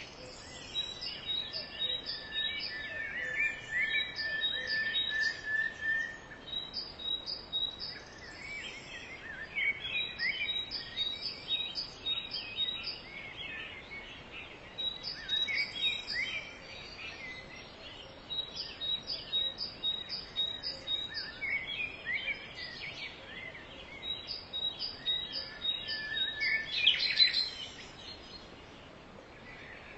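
Forest songbirds singing together. One bird repeats a phrase of four or five quick high notes every few seconds, while others chirp and trill lower down, over a faint steady background hiss.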